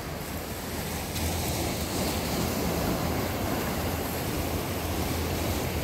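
Sea waves washing and breaking against jetty rocks, with wind rumbling on the microphone; the surf gets louder about a second in.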